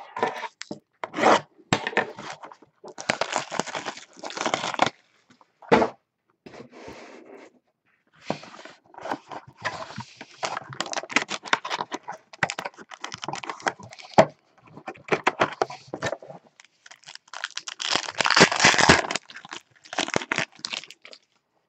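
A small cardboard trading-card box being torn open and a foil-wrapped card pack ripped and crinkled. Short tearing, crinkling and handling noises come one after another, longest and loudest near the end.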